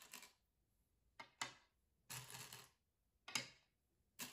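Go stones clicking faintly: a hand picking stones out of the bowls and setting them down on the board, several separate clicks about a second apart, with a short rattle of stones in a bowl around two seconds in.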